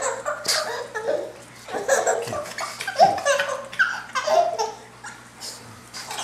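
Baby laughing in repeated high-pitched bursts, several peals each falling in pitch, spaced about a second apart.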